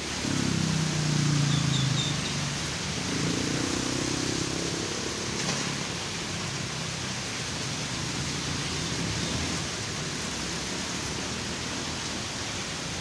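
Steady hiss of rain on a road, with a passing vehicle's engine rising and falling in pitch in the first two seconds. Another engine passes from about three to five seconds in.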